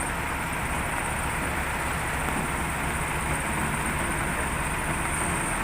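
Case 580 Super L backhoe's diesel engine running steadily at an even pace.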